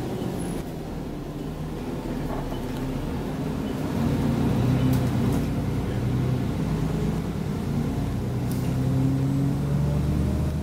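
Enviro400 double-decker bus engine heard from inside the lower deck as the bus drives along, its hum growing louder about four seconds in, with a few light rattles from the interior.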